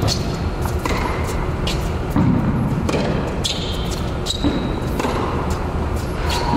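Tennis balls knocking sharply off rackets and the indoor hard court in an irregular series, roughly one or two a second, over a steady low hum, with a short high squeak about halfway.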